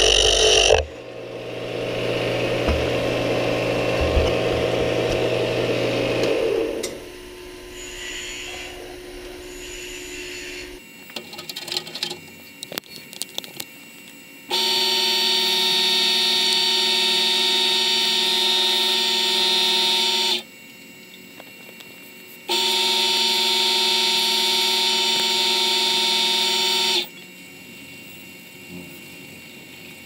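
Small wood lathe running with a pen blank on its mandrel. First comes a rough scraping noise of a tool on the spinning blank. A few clicks and handling clatter follow near the middle, then two steady humming runs of the motor, each lasting several seconds and cutting in and out sharply, while the pen is finished by hand.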